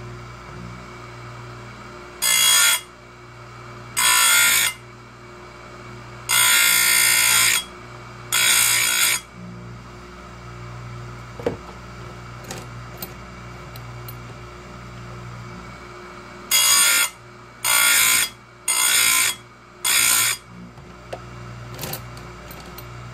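Oregon 410-120 bench chain grinder sharpening chainsaw chain teeth: the motor hums steadily, and the abrasive wheel screeches against a tooth in eight short grinds. There are four spaced grinds over the first nine seconds, a pause with a few light clicks as the chain is moved on, then four more in quick succession.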